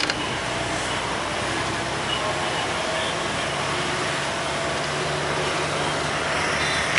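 Bus running, heard from inside the passenger cabin: steady road and engine noise with a low engine hum that steps up in pitch about halfway through. A few handling clicks from the phone at the very end.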